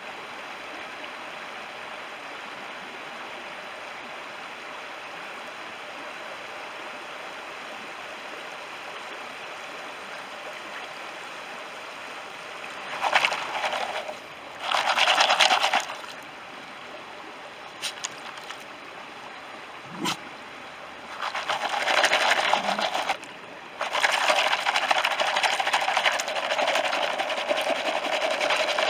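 Shallow stream running steadily. From about halfway, water and gravel slosh and splash in a black plastic gold pan in several bursts, with a few short clicks of stones, and a longer stretch of swirling near the end.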